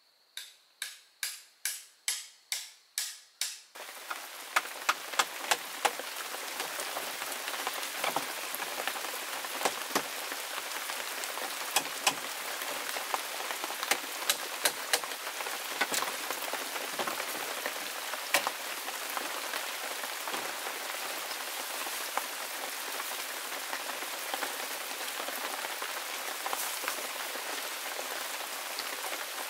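Steady rain: an even hiss with scattered sharp drops striking close by. It opens with a quick run of about eight evenly spaced taps, before the rain comes in about four seconds in.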